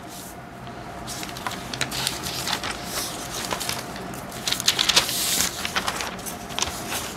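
Sheets of paper being handled and shifted over one another: a papery rustling with scattered crackles and taps, loudest about five seconds in, over a faint steady hum.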